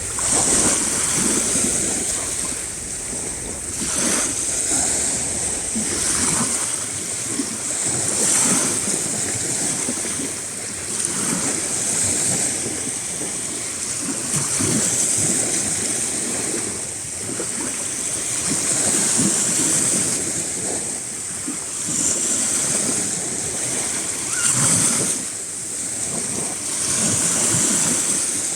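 Sea waves washing in and breaking on the shore, a steady rush of surf that swells and eases every few seconds.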